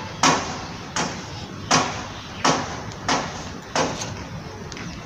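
Hand sweeping through gritty potting mix of soil, cocopeat and sand in a metal basin, six rasping scrapes about every 0.7 s, each fading quickly, as fungicide powder is mixed in.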